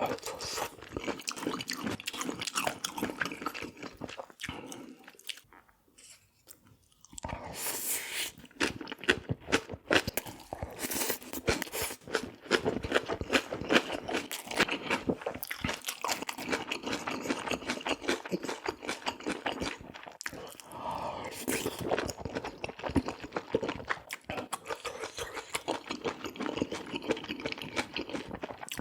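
A person chewing and crunching food close to the microphone, in dense, irregular bites, with a brief lull about five seconds in.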